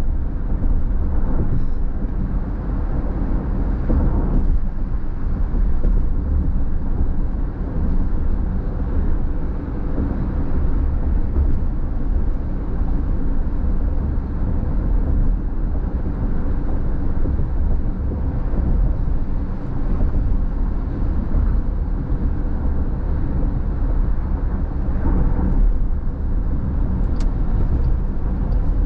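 Steady road and tyre noise heard inside a car cruising at freeway speed, a low rumble that swells briefly twice.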